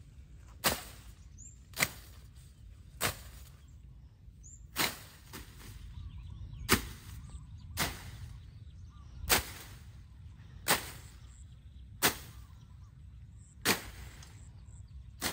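Chopping on a cutting board with a knife: single sharp chops at an uneven pace, about eleven strikes, one every second or two.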